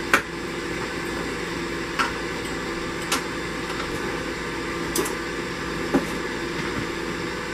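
Steady hum of an electric fan, with five sharp clinks of steel pieces and tools being handled on the workbench, the first the loudest.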